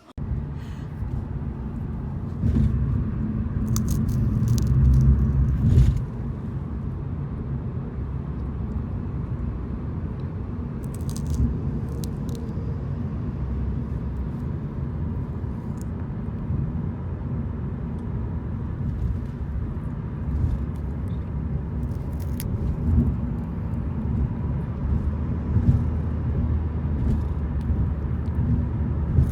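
Steady low road rumble heard inside a moving car, a little louder for a few seconds near the start, with a few faint clicks.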